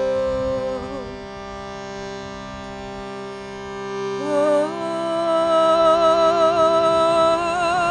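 Shruti box sounding a steady reed drone while a woman sings long held notes over it. Her first note ends with a small wobble about a second in, leaving the drone alone, and she comes back in about four seconds in, louder, holding a note with vibrato.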